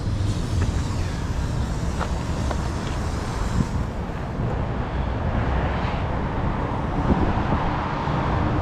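Steady low outdoor rumble with a general background hiss and a few faint clicks; no single source stands out.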